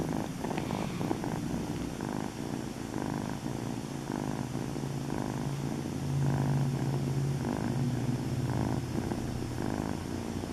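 Black-and-white kitten purring close up, the purr swelling and easing with its breaths about once a second.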